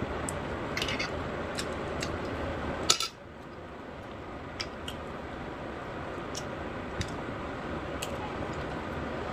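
Cutlery clinking against a dish during a meal: scattered sharp clicks over a steady background hiss. The hiss drops suddenly after a louder click about three seconds in.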